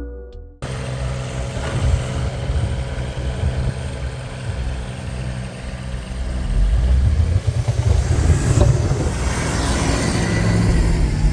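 Lo-Boy tractor's engine running under load while pushing snow with its plow, growing louder about six seconds in.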